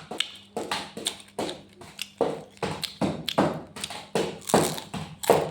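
Repeated sharp cracks and taps, about one or two a second, of crab shell being cracked open and eaten.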